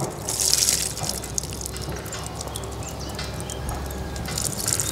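Water splashing over and dripping off a Klipsch Austin portable speaker as it is rinsed. The splash is heaviest in the first second, then the water runs and drips more lightly.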